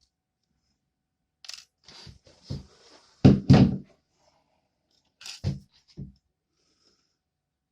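Small hard objects handled and set down on a tabletop: scattered knocks and thuds, the loudest pair a little over three seconds in and two more between five and six seconds.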